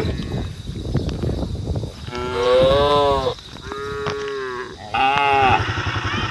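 Cattle mooing: three long calls in a row in the second half, the middle one held at a steady pitch, cows calling to the herd. Near the end a small motor engine starts running under them.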